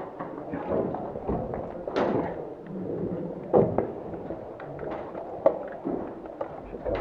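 Irregular scattered thuds and sharp clicks, unevenly spaced, with the strongest knocks about two seconds in and again past the middle.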